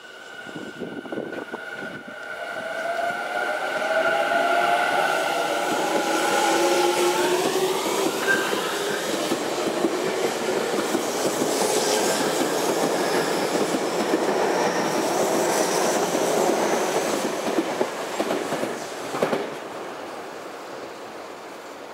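Tobu 50070-series electric train pulling out of the station. Its traction motors whine in several tones that rise in pitch over the first several seconds as it accelerates, then the cars run past with wheel and rail-joint clatter. A short knock comes near the end, and the sound fades as the last car goes by.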